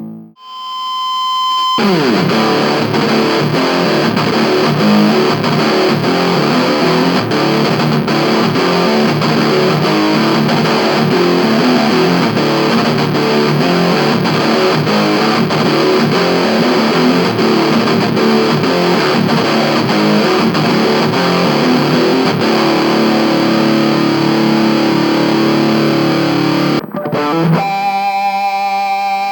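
Electric guitar played through an Orange Crush 20RT mini amp with heavy distortion, dense continuous riffing. Near the end the playing breaks off briefly and a few separate, cleaner notes ring out.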